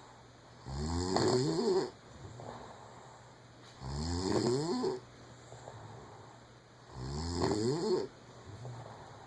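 A woman snoring in her sleep: three loud snores about three seconds apart, each lasting about a second, with a softer breath between them.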